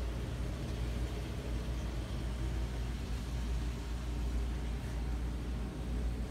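Steady low machinery hum, unchanging, with a faint even hiss above it.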